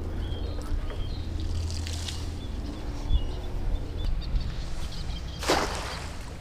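A thrown cast net lands on the water with a single loud splash about five seconds in. Small birds chirp in short high calls throughout.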